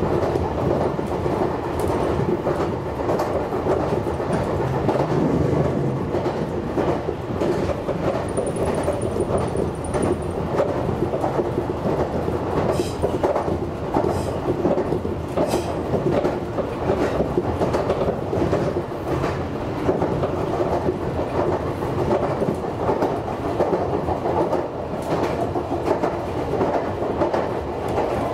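Meitetsu 6800-series electric train running along the track: a steady rumble of wheels on rail with irregular clicking over the rail joints.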